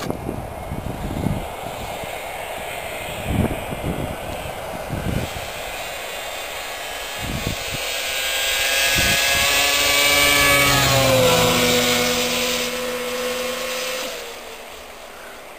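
2007 Arctic Cat F6 Sno Pro snowmobile's two-stroke twin at speed, growing louder as the sled approaches, dropping in pitch as it passes about eleven seconds in, then fading away. Low thumps in the first half.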